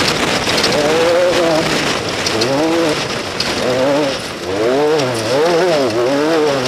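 Off-road racing vehicle engine revving up and down over and over, its pitch swinging quickly several times a second, over a steady hiss.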